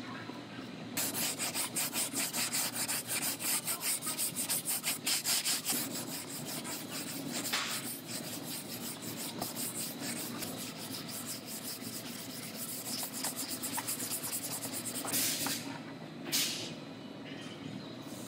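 Hand sanding of body filler on a car's steel quarter panel with a sanding pad: quick, even back-and-forth scratchy strokes for several seconds, then slower, uneven rubbing. Two short hissing bursts come near the end.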